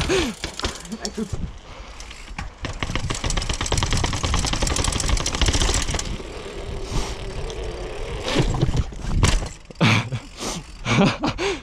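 Mountain bike coasting: the rear hub ratchets in a fast, even run of clicks over a low rumble of tyres and wind. Several sharper knocks follow near the end.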